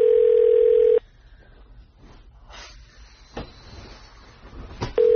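Telephone ringback tone, the ringing heard by a caller. A single steady low beep lasts about the first second, then about four seconds pass with only faint rustles and a couple of soft clicks, and the tone comes back near the end.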